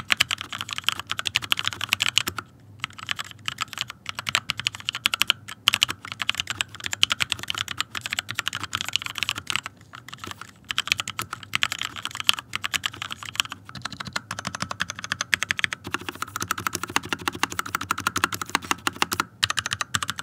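Fast, continuous typing on a rebuilt budget mechanical keyboard with its O-rings taken off: dense key clacks with a few brief pauses.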